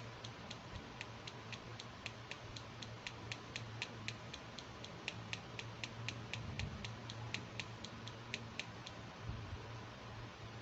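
Rapid, even light clicking, about four clicks a second, from fingernails tapping a hard plastic toy brush stand; the clicking stops near the end, over a faint low steady hum.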